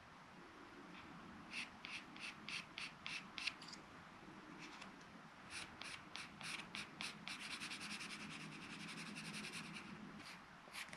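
Felt-tip marker writing on a wooden popsicle stick, faint: a run of short taps about four a second as dots are made, then quicker, steadier scratchy strokes as lines are drawn.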